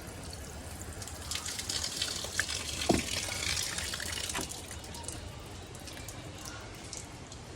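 Water running from a shower, a steady spray that grows louder for a few seconds about a second and a half in, then eases.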